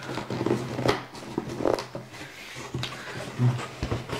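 A cardboard box and its paper packing being handled and rustled, with irregular crinkles and light knocks over a low steady hum.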